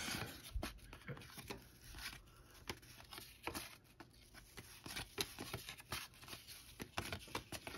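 1986 Topps cardboard baseball cards being flipped off a stack one at a time and dropped onto piles, giving faint, irregular soft clicks and rustles.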